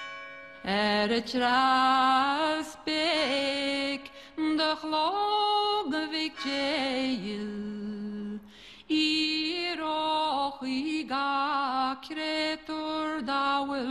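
A solo voice singing unaccompanied: a slow traditional Irish melody with long held notes, sliding and ornamented turns between them, and short breaths between phrases.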